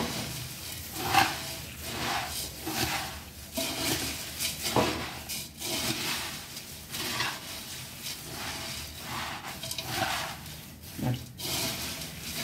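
Steel spoon mixing dry puffed rice in a metal pot: repeated scraping strokes against the pot with the crisp rice rustling, about one stroke a second.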